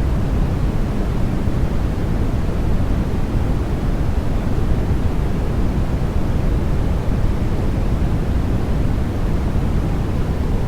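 Continuous generated noise for sleep, steady and unchanging, weighted toward the low end so it sounds deep and rushing rather than hissy.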